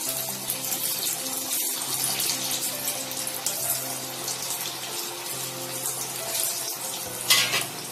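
Sabudana tikkis (sago-and-potato patties) deep-frying in hot oil in a kadhai: a steady, vigorous sizzling hiss from the oil bubbling around the freshly added patties. Soft background music runs underneath.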